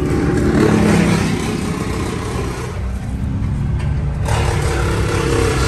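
Diesel engine of heavy tree-work machinery running, its pitch rising and falling with the revs, with a sudden fuller burst of noise a little over four seconds in.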